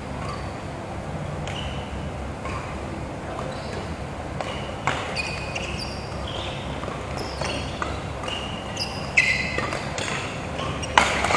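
Badminton rally: sharp cracks of rackets hitting the shuttlecock, a few seconds apart, and short high squeaks of court shoes on the floor, over the steady background noise of a large sports hall.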